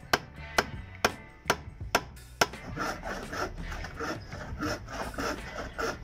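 A hand saw cutting through wood in rhythmic scraping strokes, about three a second, starting around halfway through. Before that, a run of sharp knocks about twice a second.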